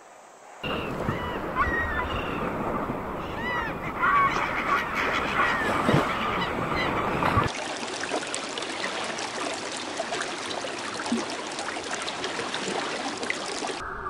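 Birds calling: short, repeated rising-and-falling calls over a noisy background. About seven and a half seconds in, this gives way to a dense crackling hiss with no calls.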